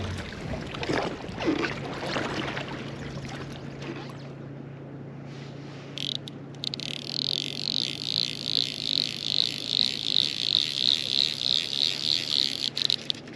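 A high-pitched animal call pulsing about three times a second, starting about halfway through and stopping just before the end, over a steady low hum.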